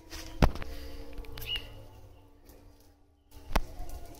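Two sharp knocks about three seconds apart from hands handling a freshly caught fish close to the microphone, with a single short bird chirp between them.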